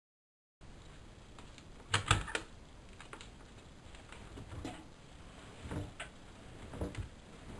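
Mechanical clicking from an AEG Lavamat L6461 washing machine: a quick cluster of sharp clicks about two seconds in, then softer single clicks about once a second.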